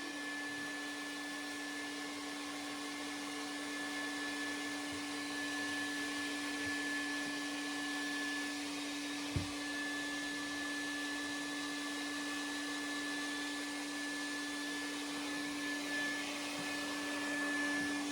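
Pet grooming dryer blowing steadily: a rushing stream of air with a constant motor hum and a steady high whine. There is one short knock about nine seconds in.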